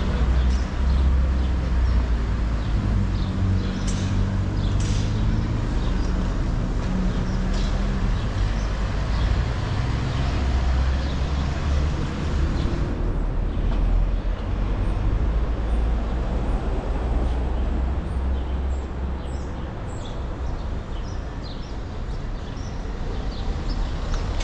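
City street ambience: car engines running and traffic passing, a steady low rumble that eases somewhat about halfway through, with a few short high chirps scattered over it.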